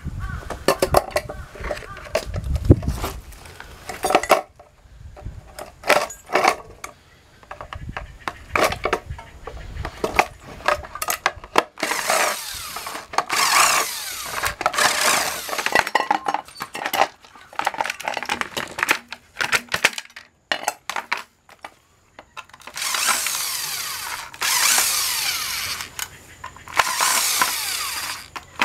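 Cordless impact driver running in several bursts of a few seconds, backing cross-head screws out of the housing of a hot-plate/takoyaki appliance being stripped for scrap aluminium. Before that there is clatter and knocking of metal parts and screws being handled.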